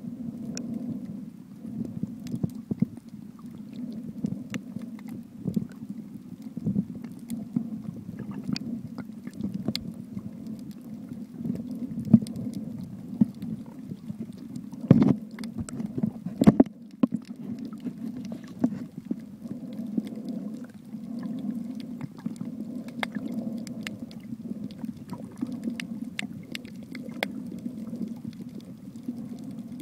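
Underwater sound picked up by a submerged camera: a steady muffled low rumble of moving water with scattered clicks, and a few louder knocks about 15 and 16.5 seconds in.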